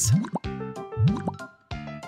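Cartoon plop sound effects, short rising bloops, at the start and again about a second in, marking areas of the picture filling with colour, over background music.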